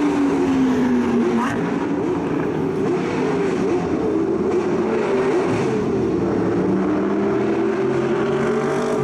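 Engines of several luxury cars running on track at once, their pitches gliding up and down and overlapping as they accelerate, lift off and pass.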